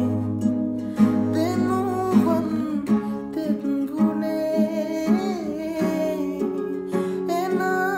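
A man singing a Sinhala song to his own acoustic guitar, plucking chords about once a second under a voice that glides between notes.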